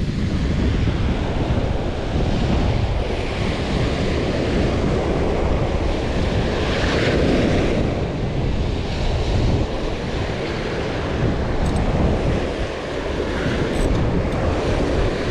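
Ocean surf breaking and washing up the sand around the feet, with wind buffeting the microphone. The noise is steady and swells briefly about halfway through.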